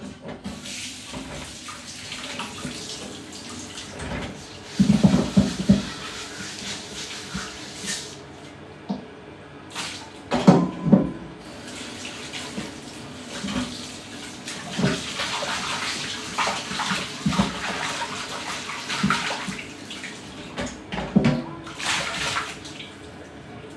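Kitchen tap running into a steel sink as things are washed by hand, with clunks and clatters from items knocking in the sink several times.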